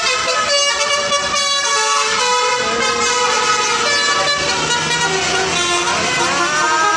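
Bus 'telolet basuri' multi-tone horn playing a melody: several horn tones sound together and step from note to note, with sliding rises that level off near the end.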